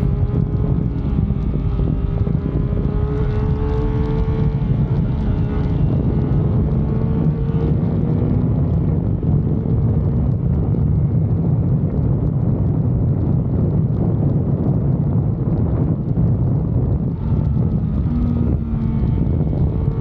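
Yamaha MT-09 motorcycle's three-cylinder engine and exhaust running under way, engine pitch rising gently in the first few seconds, then holding steady with small changes near the end.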